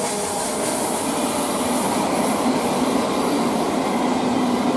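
ÖBB Railjet double-set passenger train rolling into the station, wheels running on the rails, with a steady low tone from the traction gear setting in after about a second and a half.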